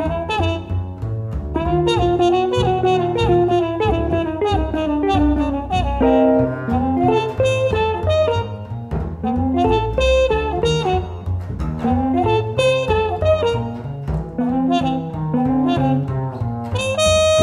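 Jazz background music: a saxophone melody with bending notes over a double bass line.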